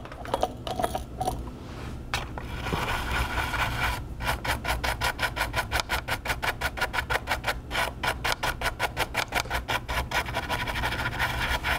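Rapid back-and-forth scrubbing of a circuit board's solder pads with alcohol during cleanup after desoldering, about four to five scratchy strokes a second, over a steady low hum.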